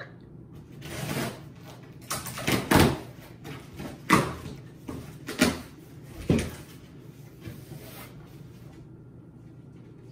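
A gift package being handled and opened: a run of sharp rustles and knocks, the loudest about two to six seconds in, stopping after about eight seconds.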